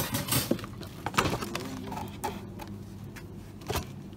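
Scattered light knocks and clicks over a steady low hum of shop background noise, the sharpest knock about a second in and another near the end.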